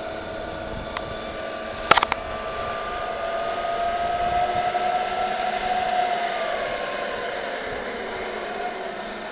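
Zipline trolley pulleys rolling along the steel cable, a steady whine that grows louder toward the middle and then falls in pitch as the ride slows. About two seconds in, a quick cluster of three sharp knocks.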